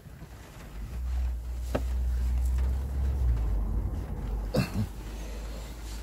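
Low muffled rumble of a microphone being handled and jostled as someone shifts about in a cramped space, loudest for a couple of seconds early on, with a single sharp click about two seconds in and a short rustle near the end.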